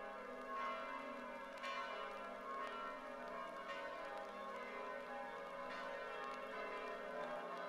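Bells of the Frauenkirche pealing, several bells ringing together in an overlapping, sustained wash of tones with a new strike about once a second.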